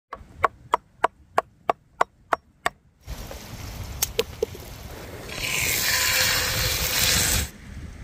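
Cleaver chopping down onto a wooden cutting board nine times in quick, even succession, about three strokes a second, followed by a few light knocks on the wood. Near the end a loud rushing hiss runs for about two seconds and cuts off suddenly.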